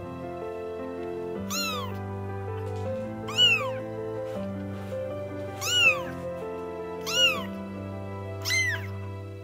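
Very young kitten meowing five times, each a short high cry that rises and falls in pitch, over soft background music.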